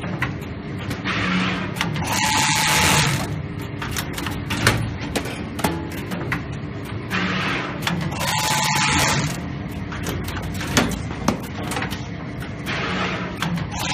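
SSB420 automatic metal spiral wire forming and binding machine running through its binding cycle: three times, about six seconds apart, a rushing, whirring stretch of about two seconds with a steady tone in it, and short clicks and knocks of the mechanism in between.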